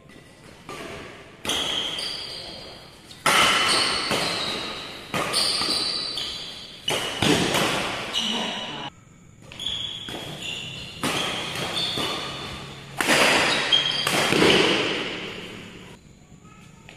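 Badminton rackets striking a shuttlecock in a fast doubles rally: sharp cracks, roughly one every second or two, each ringing out in a large hall's echo. Short high squeaks from shoes on the court come between the hits.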